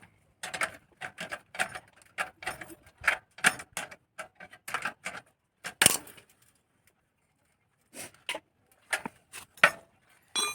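Metal spanner clicking and clinking against the nuts of a bicycle's rear axle and chain adjuster as the chain is tightened: a run of irregular clicks and knocks, a sharper knock about six seconds in, a pause, then more clicks and a short metallic ring near the end.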